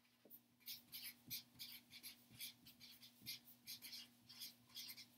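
Marker writing on chart paper: a run of short, faint scratchy strokes as the words are written by hand.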